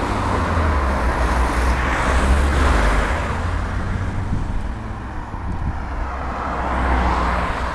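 Road traffic going past close by: vehicles swell past about two seconds in and again near the end, over a steady low rumble.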